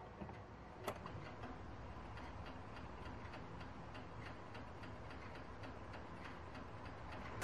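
Faint, even ticking, several ticks a second, with one louder click about a second in.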